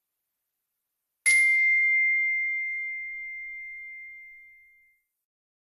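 A single bright ding, a chime sound effect, sounding about a second in and ringing out slowly as it fades over nearly four seconds.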